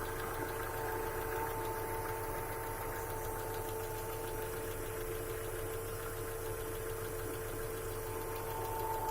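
Car engine idling with a fast, even knocking and a steady whine over it. This is the knock that appeared after the timing belt was replaced.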